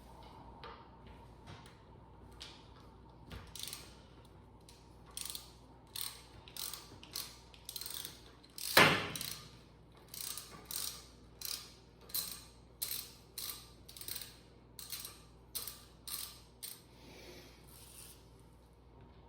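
Ratchet wrench clicking in repeated short strokes, about two a second, as a bolt holding the fuel pump is worked loose. One loud metal clank comes about nine seconds in.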